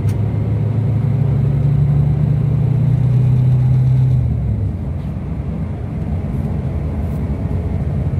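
Scania K360 coach's 13-litre Scania DC13 inline five-cylinder diesel, heard from inside the cabin while driving. Its low drone edges up in pitch, then falls and gets quieter about four and a half seconds in, settling to a steadier, lower run.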